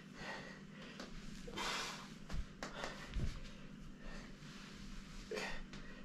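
A person's breathing: a few short, breathy exhalations or sniffs, with two soft low thumps around the middle.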